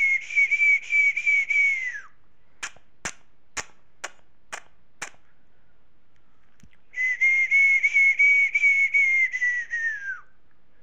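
A high whistle held for about two seconds, wavering slightly and dropping in pitch as it ends. Then come six sharp snaps about half a second apart, and the whistle again for about three seconds.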